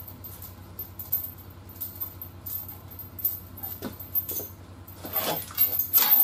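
Hustler stick lever bar and its steel chain under load as the bar is pressed down on a twisted frame rail, giving faint metal clicks and creaks. The chain rattles and clinks near the end as the bar is released and lifted. A steady low hum runs underneath and stops just before the end.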